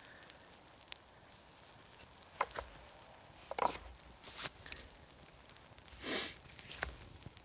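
Newly lit campfire of thin dry twigs crackling, with a few scattered sharp snaps and pops, the loudest around two and a half and three and a half seconds in, and a short soft rushing sound about six seconds in.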